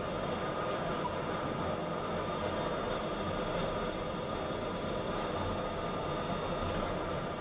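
Steady mechanical drone and hum of a deep-sea submersible's machinery, heard inside the cabin while it moves through the water column.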